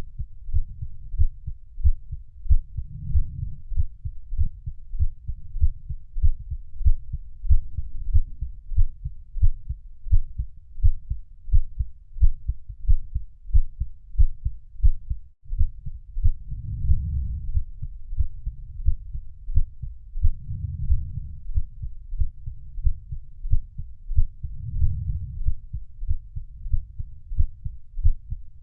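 Heartbeat sound: low thumps repeating in a steady rhythm, with a momentary gap about fifteen seconds in.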